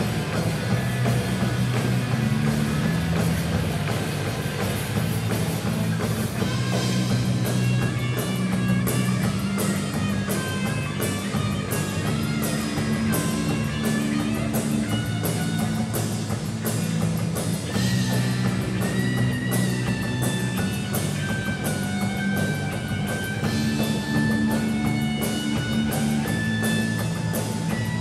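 Amateur rock band playing live: electric guitars and drum kit with a steady driving beat and cymbals throughout, and a melodic lead line over it, apparently an instrumental passage without singing.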